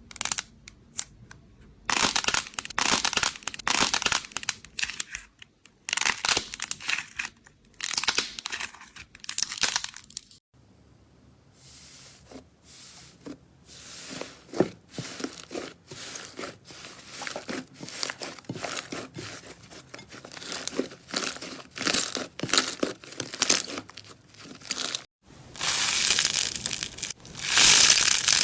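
Slime being squeezed and pressed by hand, making crinkly, crackling squishes in bursts. In the middle stretch it turns into a dense run of small clicks and pops.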